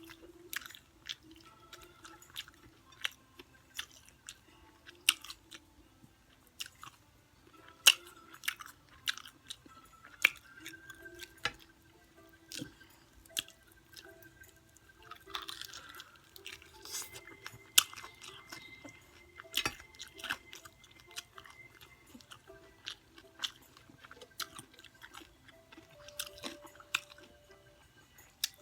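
Close-miked chewing of crunchy fried chicken, with frequent sharp crunches and mouth clicks at an irregular pace.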